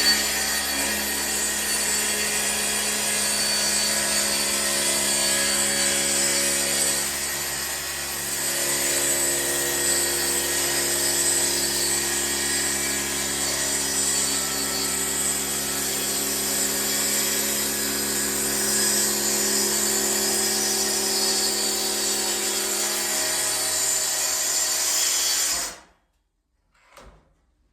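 Track saw running steadily as it cuts along wooden trim, a constant motor whine over the hiss of the blade. It cuts off suddenly near the end.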